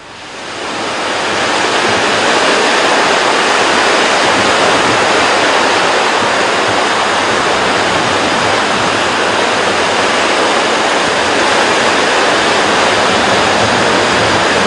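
A loud, steady rushing noise that fades in over the first two seconds and then holds even, with no rhythm or tone in it.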